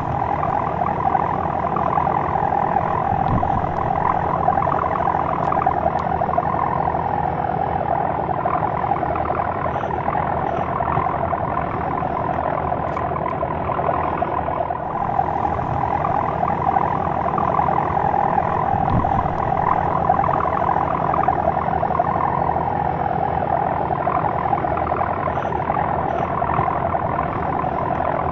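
Four-metre sendaren bow hummer on a flying gapangan kite droning in the wind: a loud, snore-like hum that swells and fades every few seconds.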